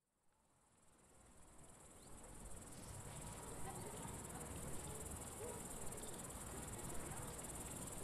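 A dense chorus of meadow insects, a steady high chirring, fading in from silence over the first few seconds.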